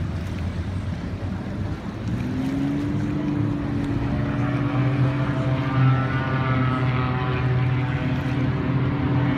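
Propeller aeroplane engine drone, coming in about two seconds in and holding a steady pitch as the aircraft approaches, over harbour wind and water noise.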